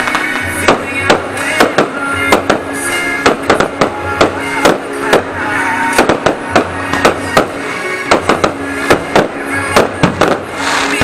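Aerial firework shells bursting in a rapid, irregular series of sharp bangs, several a second, with music playing underneath.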